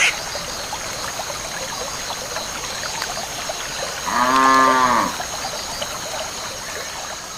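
A cow mooing once, a single call of about a second that rises and falls in pitch, about four seconds in. Under it runs a steady trickle of flowing water.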